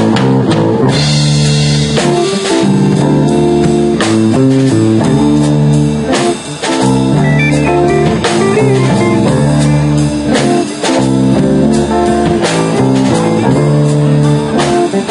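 Live band playing a blues-rock tune on electric guitars, keyboard and drum kit. The music comes in loud and all at once at the start.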